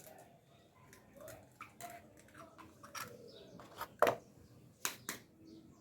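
Sharp taps and clicks of eggs being cracked and handled at a mixing bowl, several separate strikes with the loudest about four seconds in.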